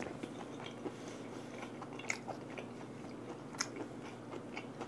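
Close-miked chewing of a mouthful of vinegar-cured mackerel sashimi, quiet, with faint soft crunches and wet mouth clicks every second or so.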